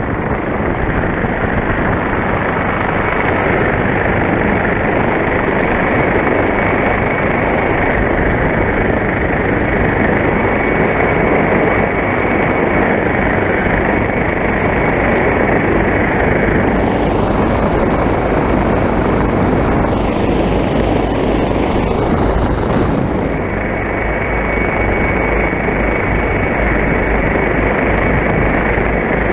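Rescue helicopter heard from on board: a steady, loud din of rotor and engine with a thin high whine. An extra high hiss comes in for several seconds past the middle.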